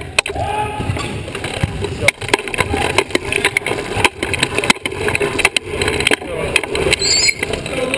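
Sports wheelchair rolling and turning on a hardwood gym floor: a low rumble from the wheels with repeated sharp knocks and rattles. A short high squeak comes about seven seconds in.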